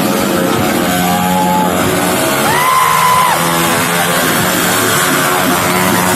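Loud music over a PA mixed with a KTM Duke single-cylinder motorcycle engine running during a stunt. A steady high tone lasts about a second near the middle.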